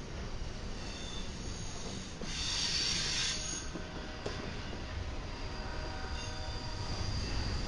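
Double-stack intermodal freight train's well cars rolling past with a steady low rumble of steel wheels on rail and faint high wheel squeal. A louder high hiss rises for about a second and a half, a little over two seconds in.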